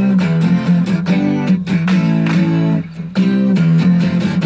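A song from an FM stereo broadcast playing through an iHome clock radio's left and right speakers, with plucked notes over a strong, steady bass line.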